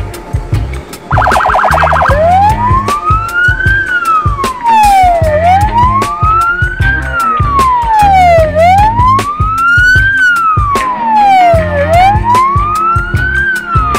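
Electronic siren on an escort motorcycle: a brief rapid warble about a second in, then a slow wail rising and falling about every three seconds, four sweeps in all. Background music with a steady beat plays underneath.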